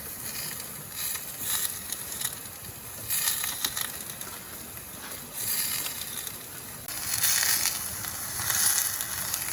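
Steaks sizzling over a fire: a steady frying hiss that swells and eases several times.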